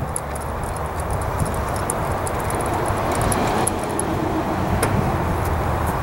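Steady background road-traffic noise, with a few faint metallic clicks from a socket and extension turning out a finger-tight spark plug on a Honda 3.5 V6.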